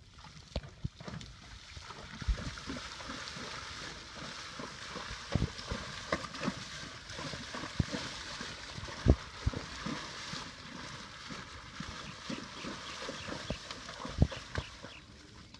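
A grey Quarter Horse gelding wading through a shallow creek under a rider, its legs splashing and sloshing through the water, with irregular heavy thuds of hooves striking the stony bottom.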